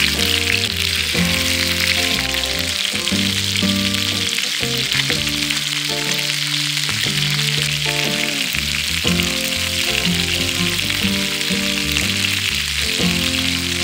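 Food frying in hot oil in a pan, a steady crackling sizzle, under background music.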